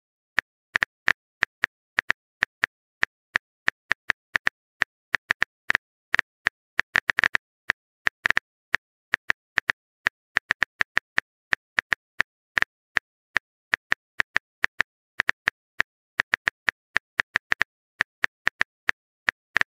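Phone-keyboard typing clicks: an irregular run of light, sharp taps, about three or four a second, with brief pauses.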